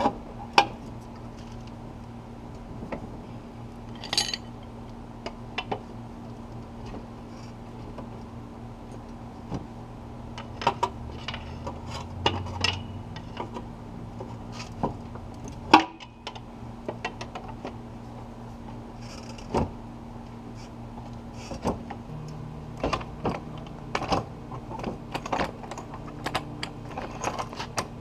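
Irregular metallic clicks and clanks of hand tools and metal parts being handled, over a steady low hum.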